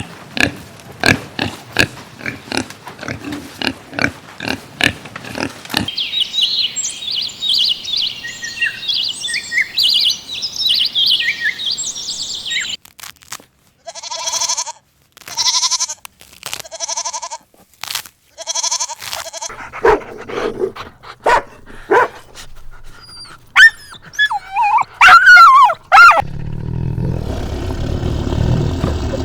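A run of animal calls from several clips. It opens on a pig grunting in quick short grunts. High chirping follows, then about five separate pitched calls, then yelping and whining calls that bend in pitch, and near the end a low rumbling noise.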